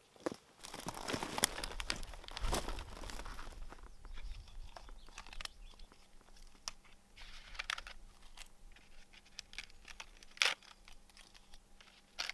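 Irregular rustling and crunching of dry material being handled, with many small snaps and clicks. It is heaviest in the first few seconds, with one short louder crackle near the end.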